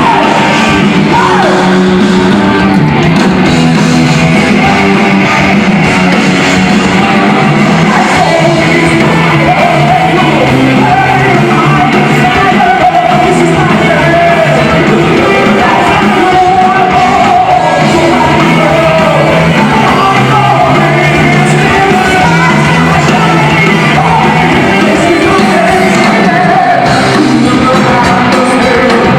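Heavy metal band playing live, loud and dense, with a singer's voice over the band.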